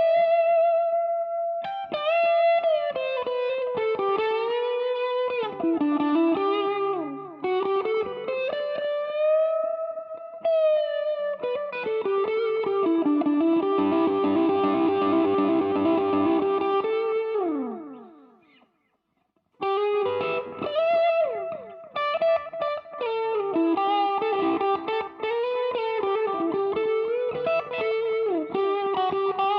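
Electric guitar played through a Mooer Green Mile overdrive pedal, a Tube Screamer clone, set to its Hot mode. Sustained lead notes with string bends and vibrato, then a held chord about halfway through that rings out and dies away. After a brief break, the lead playing starts again.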